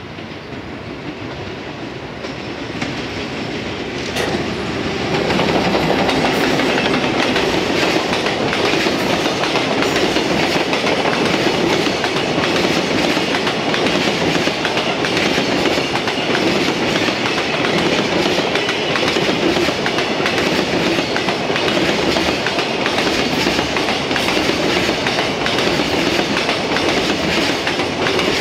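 A freight train hauled by an EF210 electric locomotive passes close by. Its container wagons' wheels clatter steadily over the track. The sound swells over the first five seconds as the train draws near, then holds loud as the wagons roll past.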